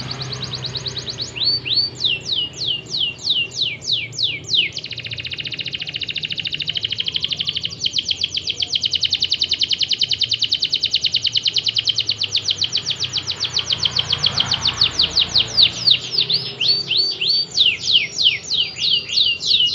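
Domestic canary singing a long, continuous song made of rolling trills. Its phrases change every few seconds, from runs of quick downward-sweeping notes to a very fast, even trill and back again.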